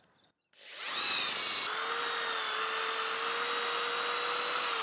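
Corded Ozito impact drill with a 12 mm bit boring a hole through a timber fence post. It starts about half a second in, runs up to speed and holds a steady whine, then begins to wind down in pitch right at the end.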